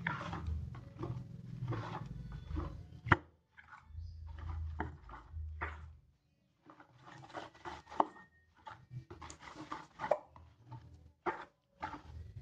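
Silicone spatula stirring flour-and-water batter in a plastic bowl: irregular wet slaps and scrapes, with a few sharp knocks of the spatula against the bowl.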